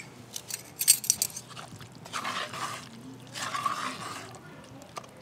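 Wooden spatula stirring a thick spice paste in a cast-iron Dutch oven, with two rasping strokes about a second apart. A few sharp clicks come just before them.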